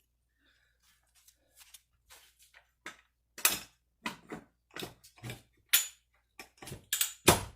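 Irregular metal clicks and clanks as the stand of a Matco under-dash creeper is moved down to a lower latching notch, with the loudest clank near the end.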